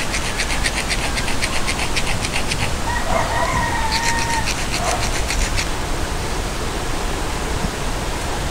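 Steady outdoor hiss, like wind or running water, with rapid high ticking, several ticks a second, for the first couple of seconds and again around four to five seconds in. A short whistle-like tone is held for about a second and a half about three seconds in.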